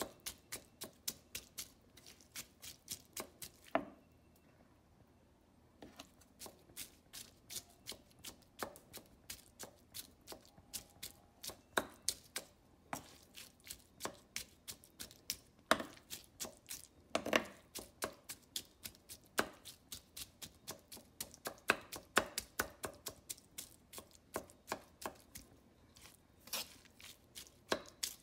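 A large kitchen knife chopping diced mango finely on a wooden cutting board: quick, regular knocks of the blade against the wood, about four a second, pausing once for about two seconds some four seconds in.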